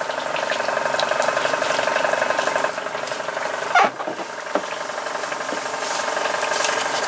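A motor running steadily with a fast, even pulse, and a long-handled deck brush scrubbing the boat's fiberglass deck, with a sharp knock a little before the middle and a smaller one just after.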